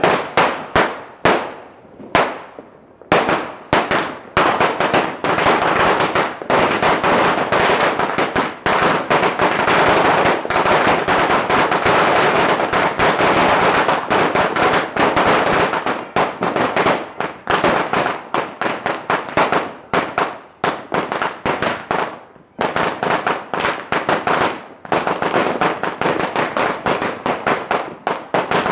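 A Phoenix Fireworks "Sawa" 1,000-round firecracker string going off. A few separate bangs come in the first three seconds, then a dense, unbroken rattle of cracks follows, with a short break about two-thirds of the way through before it carries on.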